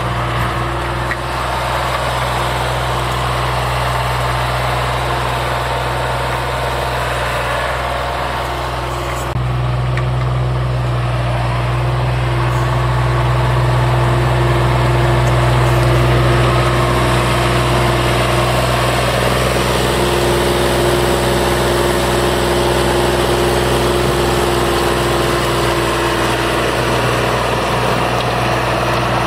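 Synchro Shuttle MS65 tractor's diesel engine running steadily under load while driving a rear rotary tiller through the soil. The engine gets louder about nine seconds in and swells as the tractor draws near.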